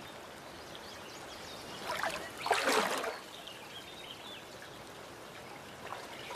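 Steady trickling of shallow stream water with faint bird chirps. About two seconds in there is a brief, louder swish lasting about a second.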